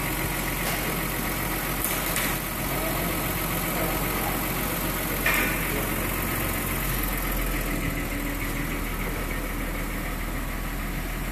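Mercedes S400 Hybrid's freshly rebuilt petrol V6 idling steadily under an open bonnet, with two brief clicks about two and five seconds in.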